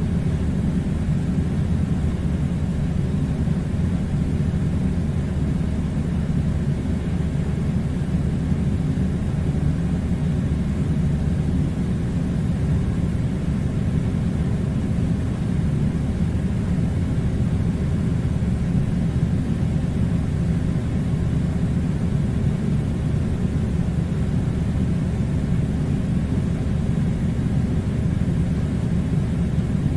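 Air conditioner running with a steady low rumble that does not change.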